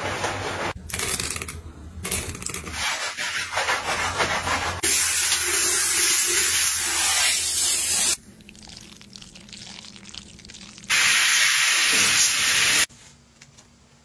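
Hands scrubbing shampoo lather through wet hair with a crackly, squishy rubbing. Then a handheld shower head sprays water in a steady hiss for a rinse, twice: about three seconds, then a pause, then about two seconds.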